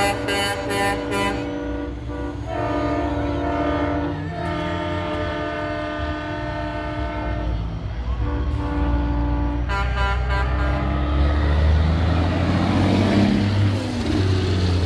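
Semi-truck air horns blowing several tones at once: quick toots at the start, longer blasts from about 2.5 to 7.5 seconds in, and more quick toots near 10 seconds. After that a heavy diesel engine rumble grows louder as a truck approaches.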